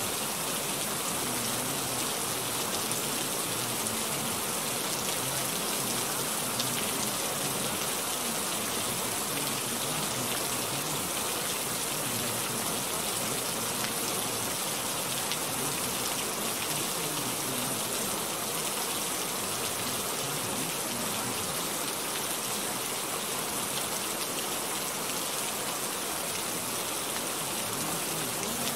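A steady, even hiss of falling rain with no breaks or changes: a constant background noise track.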